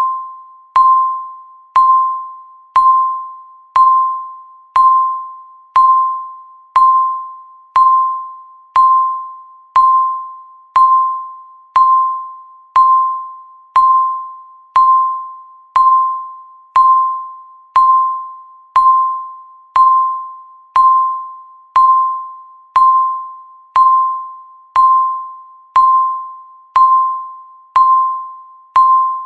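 Countdown timer's electronic tick sound: a short, bell-like pitched tick struck once every second, each one fading quickly before the next.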